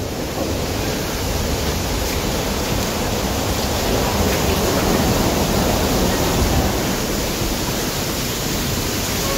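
Steady rushing of falling water from a partly frozen waterfall, running on without a break.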